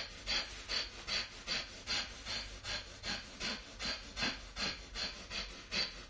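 A woman's rapid, forceful rhythmic breaths through pursed lips, about two and a half a second and evenly paced. This is a pumping breathing exercise with short sharp exhales, done while shrugging the shoulders up and down.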